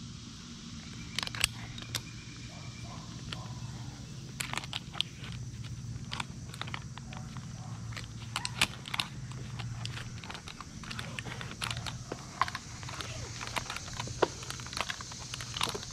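Metal climbing hardware on a tree climber's harness, carabiners and rigging clips, clinking and clicking irregularly as the climbing rope is handled, over a steady low hum.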